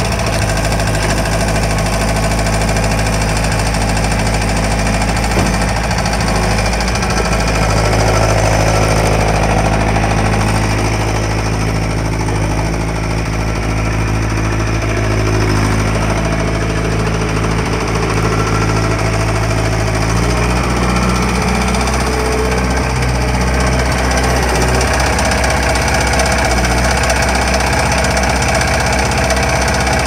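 Case 1845C skid steer loader's diesel engine running steadily while the machine drives and works its bucket. The engine note steps up about seven seconds in and drops back about twenty seconds in.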